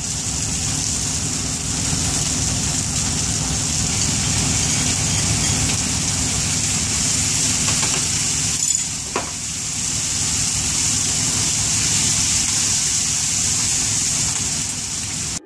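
Grated tomato, garlic and chicken frying in hot olive oil in a steel paella pan, sizzling steadily over a constant low hum.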